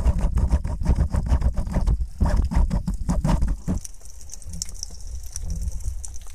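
Gear handling heard through an underwater camera housing: rapid muffled knocks and clicks over a low rumble of water, dropping to a quieter rumble with a few faint clicks about four seconds in.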